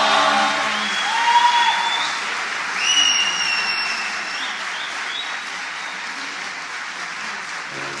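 Audience applauding after an a cappella choir, with the choir's last held chord dying away in the first second. Several long whistles from the audience ring out over the clapping in the first few seconds, and the applause slowly fades.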